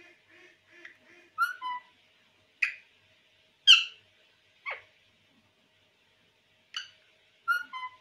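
Male rose-ringed parakeet (Indian ringneck) calling: a soft quick chatter at first, then short sharp calls about a second apart, some sweeping down in pitch. The same two-note call comes about a second and a half in and again near the end, and the loudest call falls near the middle.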